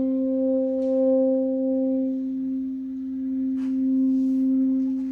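A single reed-instrument note held steadily at about middle C, easing off near the end, with two faint clicks about a second and three and a half seconds in.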